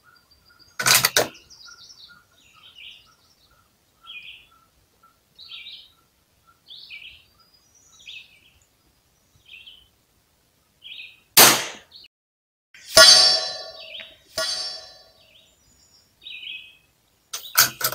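A .22 LR Ruger rimfire rifle firing: one sharp shot about a second in and another about eleven seconds in. Soon after the second shot come two ringing metallic clangs, and small birds chirp every second or so in between.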